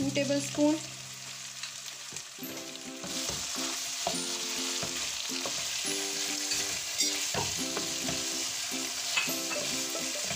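Chicken and spices sizzling in a frying pan as a dollop of yogurt is stirred in with a wooden spatula, which scrapes against the pan. The sizzle grows louder about three seconds in. Soft background music plays under it.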